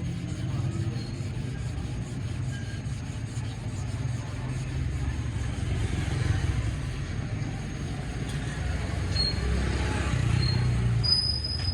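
Steady low mechanical rumble, with a few brief faint high squeaks and a sharper high squeal near the end.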